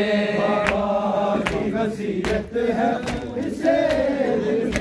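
Male voices chanting a noha (Urdu mourning lament) in unison. Sharp slaps of matam chest-beating keep the beat, about one every three-quarters of a second.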